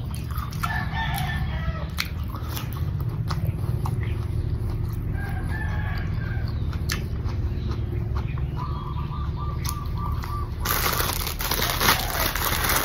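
A rooster crowing three times in the background over close, crisp chewing of raw cucumber. Near the end a plastic bag rustles loudly.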